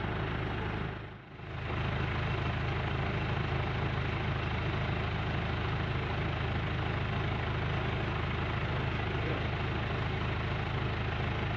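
A steady low rumble like an idling engine, with a hiss over it, dipping briefly about a second in.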